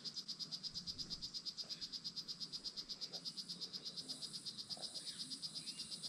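A calling rainforest animal keeps up a continuous high-pitched pulsing trill, about ten pulses a second.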